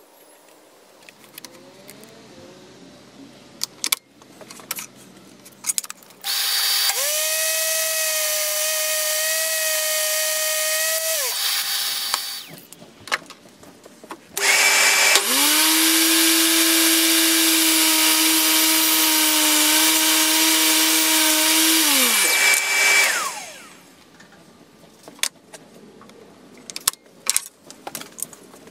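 DeWalt DWE7492 table saw motor started twice: the first run lasts about five seconds, the second about eight, each a steady whine that winds down with falling pitch when switched off. Scattered clicks and knocks of wood being handled fall between and around the runs.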